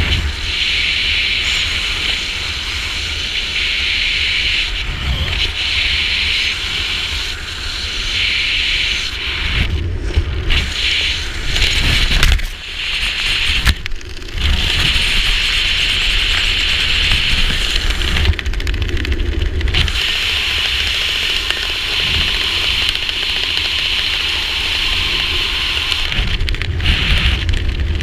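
Wind rushing over the camera microphone during a descent under an open parachute canopy: a low buffeting rumble with a steady high hiss that drops away briefly a few times.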